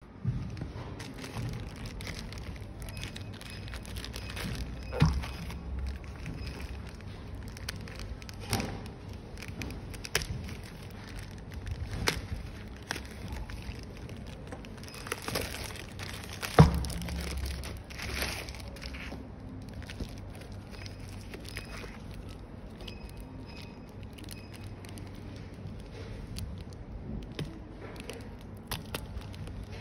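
Plastic courier mailer bag crinkling and rustling as it is handled and cut open with scissors, with a few sharp knocks on the work mat, the loudest just past halfway.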